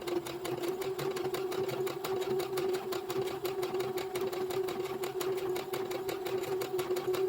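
Brother automatic sewing machine running steadily, a motor hum with fast, even needle strokes, sewing a row of stitches at its maximum stitch length of 4.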